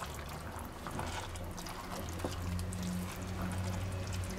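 Spoon stirring mushrooms into a thick, simmering cream sauce in a pot, wet and liquid, with small scattered clicks over a low steady hum.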